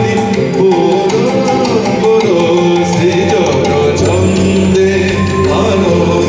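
Live Indian band music: tabla and other hand drums with keyboard and string accompaniment, and a male voice singing a gliding melody of a Bengali song.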